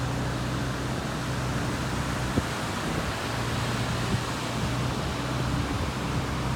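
Steady rush of ocean surf and wind, with a low steady hum underneath and a couple of faint clicks.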